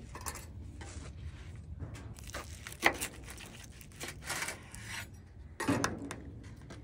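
Knife cutting through a steak topped with crispy hash browns and a fried egg on a cutting board: a run of crunching, scraping strokes, with a sharp click about three seconds in and another loud stroke near the end.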